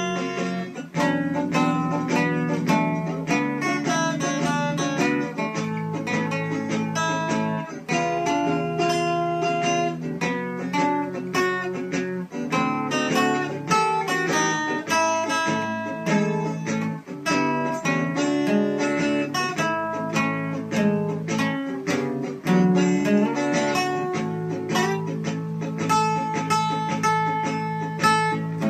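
Acoustic guitar played without singing: a steady run of quickly picked single notes over strummed chords.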